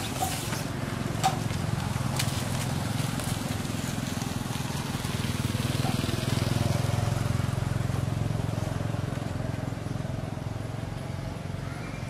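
Motorbike engine running with a low steady hum that swells about six seconds in and then eases off. A sharp knock comes about a second in.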